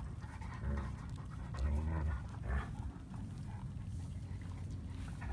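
Two-week-old German Shepherd puppies making small whimpers, grunts and breathing sounds while dozing, with a few short sounds about a second and two seconds in.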